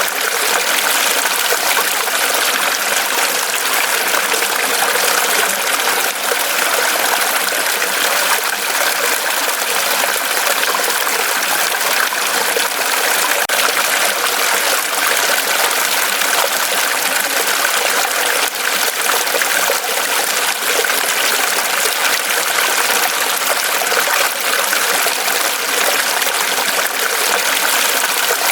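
Mountain stream running over rocks: a steady, even rush of flowing water.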